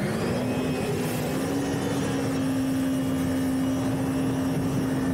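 Jet ski engine running at speed, its pitch rising slightly in the first second or so and then holding steady, over the rush of water spray and wind.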